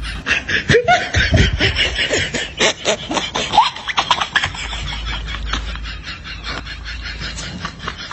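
Several people laughing and snickering in quick, choppy bursts, with a few rising giggles.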